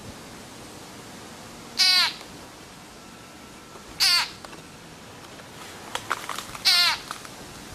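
Frog screaming in distress while a snake holds it: three loud, short cries a couple of seconds apart, each falling in pitch. A few faint clicks come just before the last cry.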